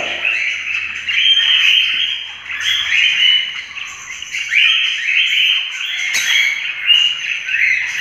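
A roomful of pet lovebirds and other small parrots chirping continuously, many high calls overlapping.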